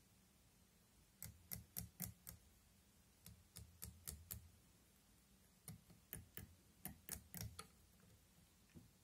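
Faint, sharp ticks in three quick runs of about five to eight, from fly-tying at the vise as strands of Krystal Flash are tied onto the hook with the tying thread.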